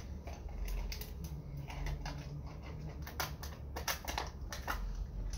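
Light, irregular clicks and taps of small objects being handled in the hands and on a tabletop, over a low steady hum.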